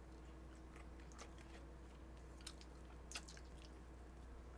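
Faint close-miked chewing of a mouthful of food, with a few soft mouth clicks and smacks, over a low steady hum.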